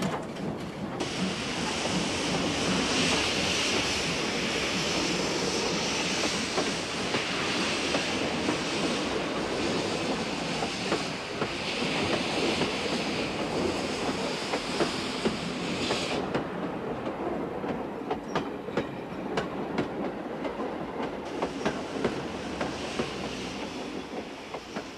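Large steam locomotive under way, hissing steam loudly from its cylinders. The hiss drops away about two-thirds of the way through, leaving wheels clicking over rail joints, and comes back more lightly near the end.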